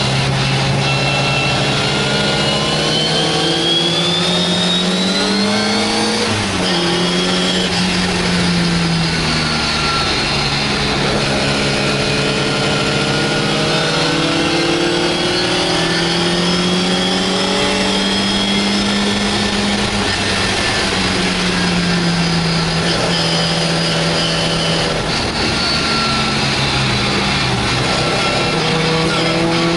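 MGA's four-cylinder engine at racing speed, heard from inside its cockpit. The revs climb, drop sharply about six and a half seconds in, then rise and fall again, with a steady rush of wind and road noise underneath.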